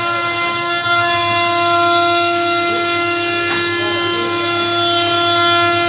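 CNC router spindle running with a steady high whine of several even tones over a constant hiss, as the bit carves a relief pattern into a wooden door panel.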